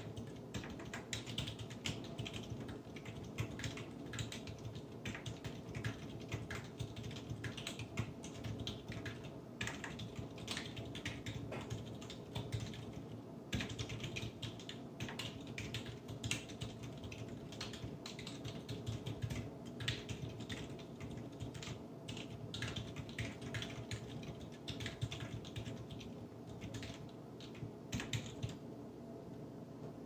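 Continuous typing on a Tecware Phantom 87 tenkeyless mechanical keyboard fitted with Outemu silent tactile switches (Blue ICE housings, 85 g SPRiT springs): a dense run of irregular key presses, with a brief pause about halfway through.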